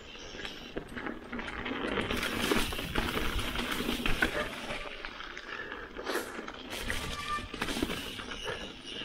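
Mountain bike riding fast down a dirt trail: tyres rolling and crunching over dirt and fallen leaves, with frequent knocks and rattles from the bike over bumps.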